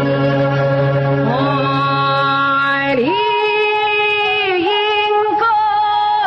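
Yue opera aria with its traditional accompaniment. After a held instrumental note, a singer enters about a second in with a slow, drawn-out line of long held notes joined by sliding pitch turns.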